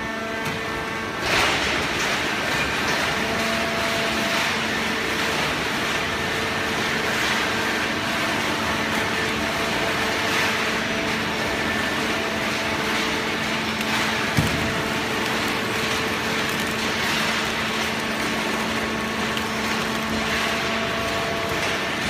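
Automatic horizontal hydraulic baler running: a steady machine noise with a constant hum from its hydraulic power unit. A metallic clank comes about a second in and a short sharp knock about fourteen seconds in.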